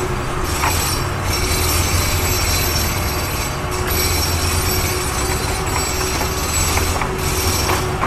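Loud steady mechanical rumble with several high whining tones over it, cutting off abruptly at the very end.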